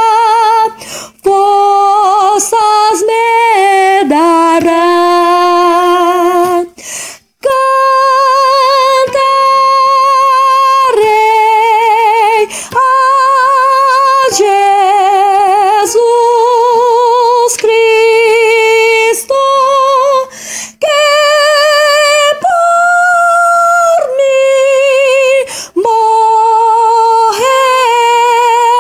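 Solo female soprano voice singing a hymn's soprano line in long held notes with a wide vibrato. There are short breaks between phrases, the longest about seven seconds in.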